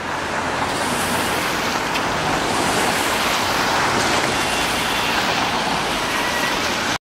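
Street traffic noise: cars passing on a wet road, a steady hiss that cuts off suddenly near the end.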